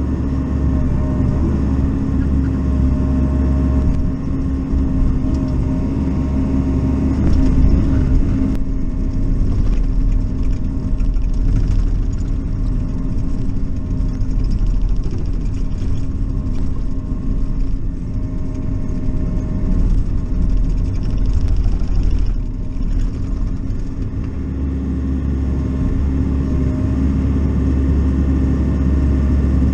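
Bobcat E42 mini excavator's diesel engine running steadily, heard from inside the closed cab, with its note wavering slightly now and then as the boom and bucket are worked.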